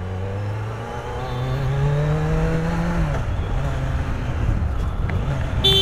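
Kawasaki Z900 inline-four engine accelerating, heard from the rider's seat: its pitch climbs for about two seconds, drops sharply about three seconds in, then runs steady. A vehicle horn sounds near the end.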